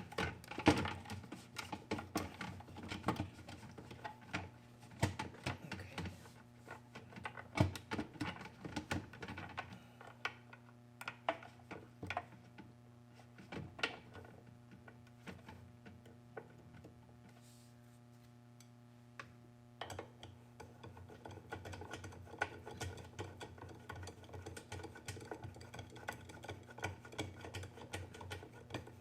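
Ratchet wrench clicking and tools clinking against metal as screws are driven back in, in irregular spells with a quieter pause in the middle.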